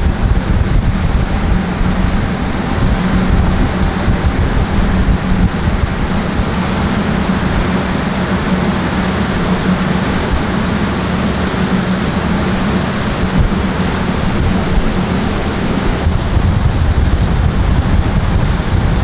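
Steady drone of a cruise boat's engine, with a constant low hum, wind buffeting the microphone and water rushing past the hull.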